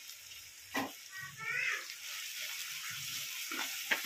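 Sliced onions frying in hot oil in a metal kadai: a steady sizzle, with a few sharp scrapes of a slotted spoon against the pan as they are stirred, one about a second in and a few near the end.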